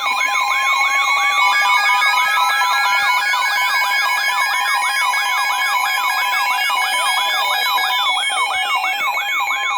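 Several siren sound effects layered together over a radio weather alert. A fast yelp warbles about three times a second, and a slow wail rises steadily and then falls away near the end, all over steady alert tones.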